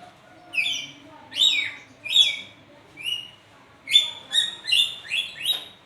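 Pet lory (nuri parrot) calling: a series of about nine short, harsh calls, coming closer together in the last two seconds.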